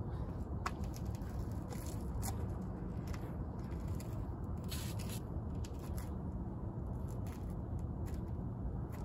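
Scattered short scrapes and rustles over a steady low rumble, as gloved hands and shoes shift on concrete while a person turns between plank positions.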